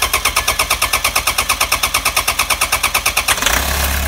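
Toyota HiAce's 1KD-FTV diesel engine cranking on the starter in rapid, even pulses, then catching about three and a half seconds in and settling into a steady idle. It is being started with freshly replaced injectors.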